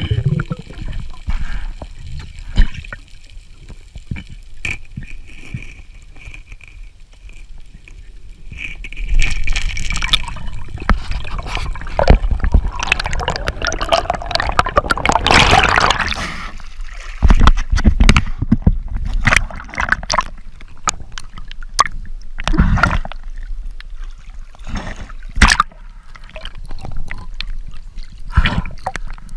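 Muffled underwater sound picked up by a diver's camera: water gurgling and sloshing over a low rumble, with scattered knocks and bumps. A louder rushing wash comes about halfway through.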